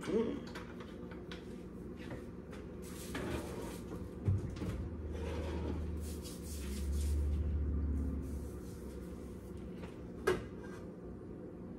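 Kitchen cabinet doors and drawers being opened and shut while cookware is taken out, with sharp knocks near the start, about four seconds in and again about ten seconds in, and scraping and rummaging between them. A low rumble runs for a few seconds in the middle.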